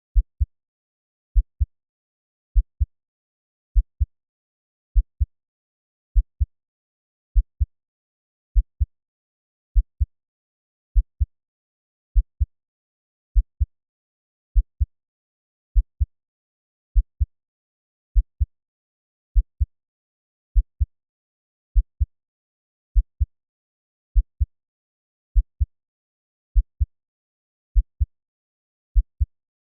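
Slow heartbeat sound at 50 beats per minute. Each beat is a deep double thump, lub-dub, and the beats come evenly about every 1.2 seconds with silence between them.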